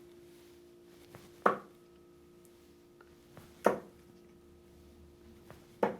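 Three Mission Spiro M1 25 g steel-tip darts thudding into a dartboard one after another, about two seconds apart, over a faint steady hum.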